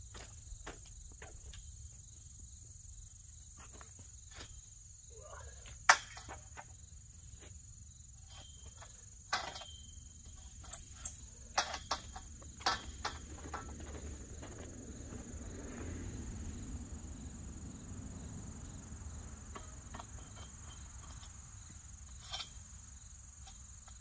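Steady high-pitched trilling of crickets over a low rumble, with scattered sharp clicks and knocks. The loudest click comes about six seconds in, and a cluster of them falls between about nine and thirteen seconds in.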